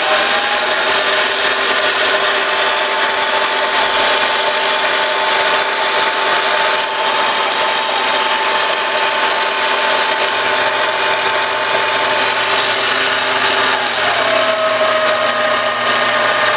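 ENCO 7x10 mini lathe running in reverse in low gear, its variable-speed motor and gear train giving a steady whine. The whine rises as the spindle spins up at the start and steps down in pitch about fourteen seconds in.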